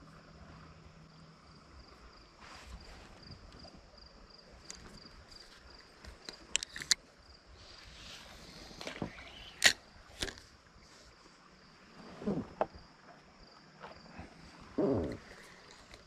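Quiet river ambience with a faint, high, pulsing insect trill. A few sharp clicks from handling a fishing rod and spinning reel during baiting and casting, the loudest pair about two-thirds of the way in. Two short sounds falling in pitch near the end.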